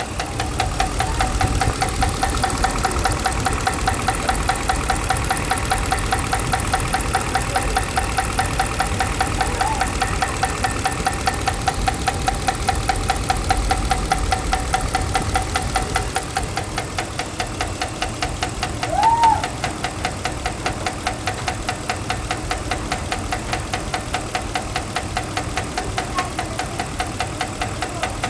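2012 Ram 5.7-litre Hemi V8 running steadily with a rhythmic ticking knock, the noise the owner is asking about. A short chirp rises and falls about two-thirds of the way through.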